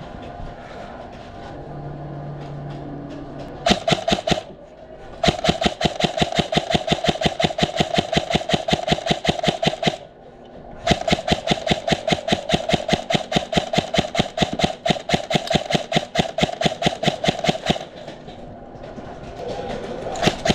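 Krytac Trident MKII PDW-M airsoft electric rifle firing full-auto: a rapid, even clatter of shots over the gearbox whine. A short burst comes about four seconds in, then two long bursts of about five and seven seconds, and another begins near the end.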